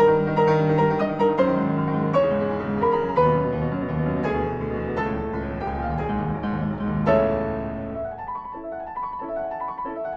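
Piano music: a steady flow of chords and melody, with a strong chord about seven seconds in, after which it thins to lighter, higher notes.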